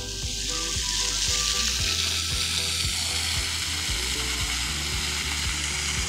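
Water jets of a splash pad fountain spraying, a steady hiss that grows louder about a second in and then holds.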